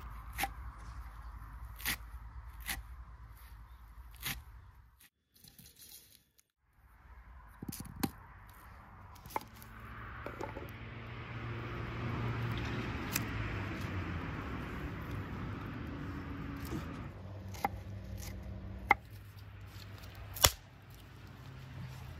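A kitchen knife chopping fresh herbs on a wooden board, a few sharp taps; then, after a brief pause, dry onion skins being torn and peeled off by hand, a long papery crackling rustle. A few separate sharp knocks near the end.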